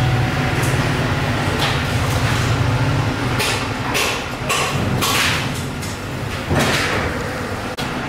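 Workshop machinery humming low and steady, then a run of short scraping noises.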